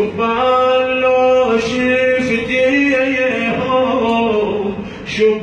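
A man chanting a Husayni lament (maqtal recitation) in Arabic, his voice holding long, slightly wavering melodic notes, with a short break near the end.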